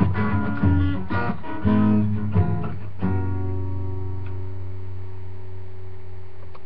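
Guitar strummed in a quick rhythm, closing on a final chord about three seconds in that is left to ring and slowly fade. A steady low hum sits underneath.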